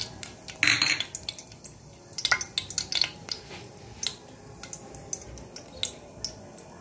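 Green cardamom pods frying in hot desi ghee in a stainless steel saucepan: scattered small crackles and pops, irregular, with a brief louder burst under a second in as the pods drop into the ghee.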